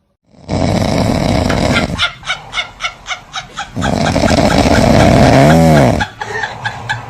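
Loud animal calls: a run of about five short clucking calls a second, then a single call that rises and falls in pitch, over a loud noisy background.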